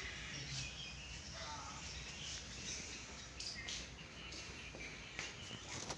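Faint background ambience: a steady low hum with scattered short, high chirps and small clicks.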